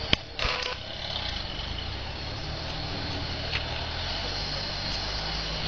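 A lifted Nissan Terrano's engine running at low revs as it crawls over rocks on 37-inch tyres. There is a sharp knock just after the start and a brief louder rattle about half a second in.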